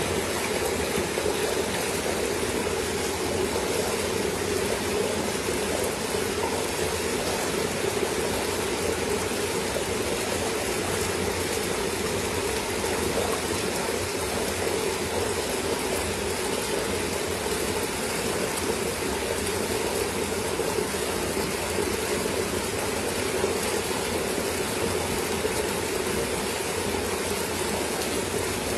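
Continuous splashing and churning of water as a dense crowd of koi thrash at the pond surface in a feeding frenzy.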